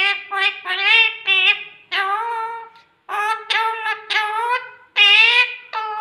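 Rose-ringed parakeet talking: a run of short, high-pitched phrases of mimicked human speech, about eight in a row with brief gaps between them.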